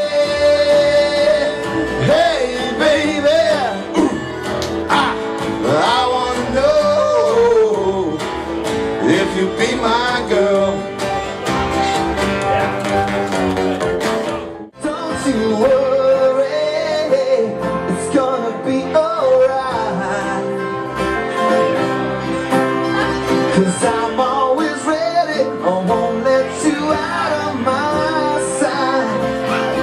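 Live band music with a country feel, guitar to the fore. It breaks off abruptly about halfway through, then picks up again with another passage.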